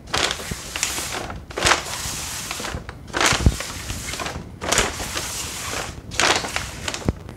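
Bags rustling and crinkling in a string of bursts as they are shuffled around by hand, with a couple of soft thumps.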